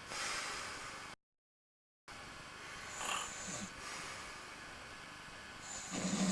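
Snoring over a steady hiss: a short snore about three seconds in and a louder, deeper one near the end. The sound cuts out completely for about a second shortly after the start.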